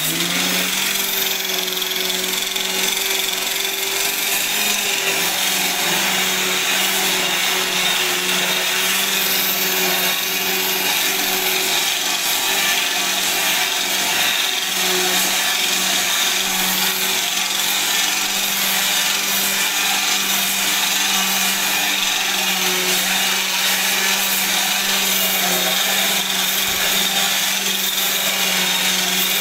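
Hand-held electric rotary brush machine, an angle-grinder-style polisher fitted with a round scrubbing brush, running steadily while it scrubs shampoo foam into sofa upholstery fabric. Its steady motor tone runs throughout under the hiss of the brush rubbing the fabric.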